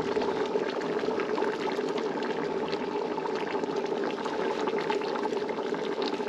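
Pot of chickpea stew bubbling on a gas burner: a steady simmer with many small pops.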